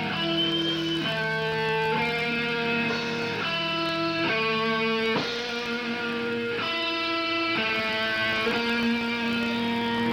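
Electric guitar playing ringing chords live through an amp, changing about every second, with no drums.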